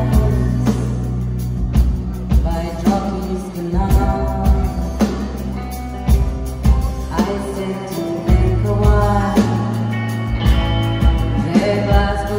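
Live band playing a song: a lead vocal sung over drums, bass, electric guitar and keyboards, with a steady drum beat.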